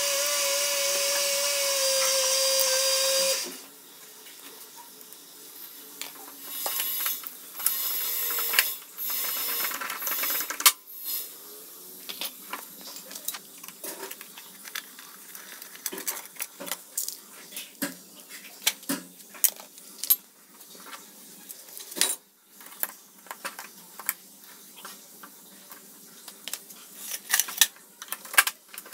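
A power tool runs steadily for about three seconds, then stops. After it comes a couple of short stretches of hissing, then a long run of scattered metallic clicks and clinks of hand tools and small parts as the left engine cover of a Honda Super Cub 50 is unfastened and taken off.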